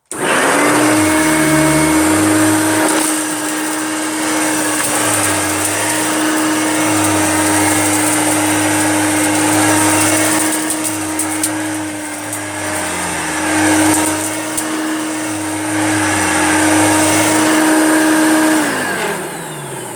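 Hoover Junior upright vacuum cleaner running on a thick-pile faux fur rug, its pile height set for the deep rug so it cleans without clogging. Its low note wavers as it is pushed back and forth, and the motor winds down near the end as it is switched off.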